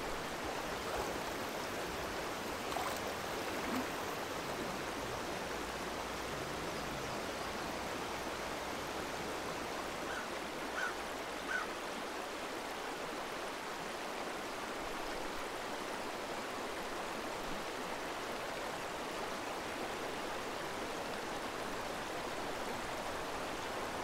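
Small mountain trout stream running steadily over rocks, an even rushing water sound. A few faint, brief sounds rise over it a few seconds in and again about eleven seconds in.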